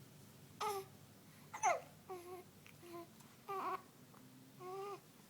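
Newborn baby making about six short, high-pitched squeaks and whimpers in a row, the strained little noises of a newborn trying to poop.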